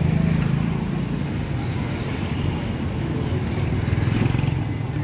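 An engine running steadily at a low hum, over the general noise of a busy outdoor market.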